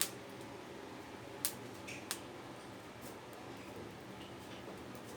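A few sharp light clicks and ticks from garlic cloves being roasted in metal tongs over a gas flame: one at the start, then two more about one and a half and two seconds in, over a faint steady background.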